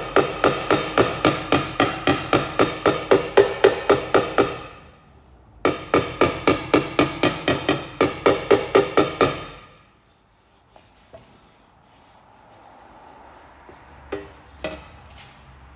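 A hammer taps rapidly on a steel two-stroke exhaust expansion chamber, about five ringing strikes a second, in two runs of about four seconds with a short break between them. It is tapping down a spot on the pipe that stands a bit full after dent repair. Near the end come only a few light knocks.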